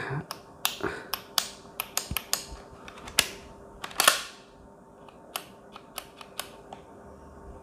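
Hatsan AT44 PA pump-action PCP air rifle's action being worked by hand, with its cylinder empty of air: a series of sharp mechanical clicks and clacks. The louder ones come about a second apart during the first four seconds, and lighter clicks follow.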